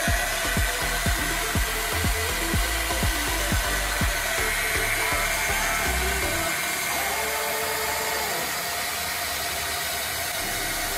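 JP-001-2 electric wall planer (1800 W, 4200 rpm per its rating plate) running off the wall with its cutter drum spinning free, a steady motor whine. Background music with a steady beat plays underneath for the first few seconds.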